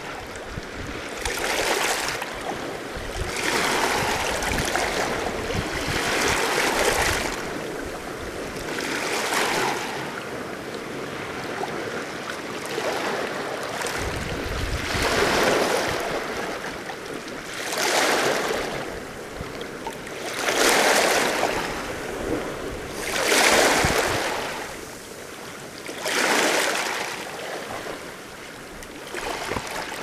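Small sea waves washing in against a rocky shoreline at the waterline, each wash swelling and falling away every few seconds. Wind buffets the microphone at times.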